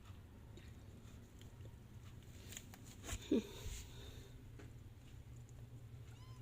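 Kittens at close range: soft clicks and one brief squeak about three seconds in, with a faint short mew near the end, over a low steady hum.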